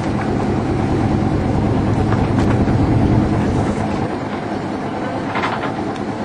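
Steady low rumble of a sailing ship under way at sea, heard below deck, with a brief rustle about five seconds in.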